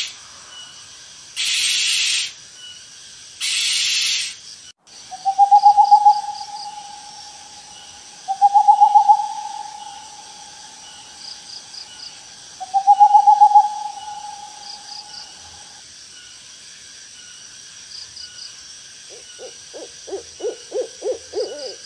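Owl calls: three short harsh hissing screeches, then three long, level whistled calls, each wavering at its start, and near the end a quick run of about eight short hoots. A steady chorus of crickets goes on underneath.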